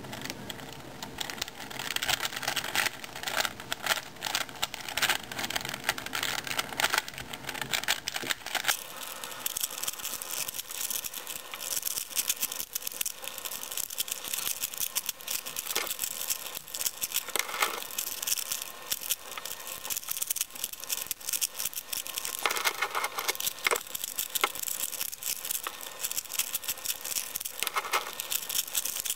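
Plastic layers of a 4x4 Rubik's Cube (Rubik's Revenge) clicking and rattling in a dense, rapid stream as it is turned through a solve. The sound grows thinner and brighter about nine seconds in.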